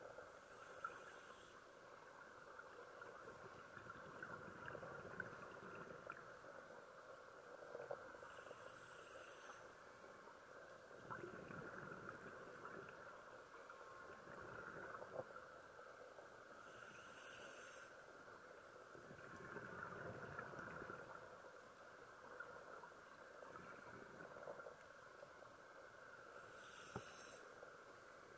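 Faint underwater ambience dominated by a scuba diver's breathing through a regulator: a hissing burst of exhaled bubbles about every eight to nine seconds, with slower, quieter swells between them.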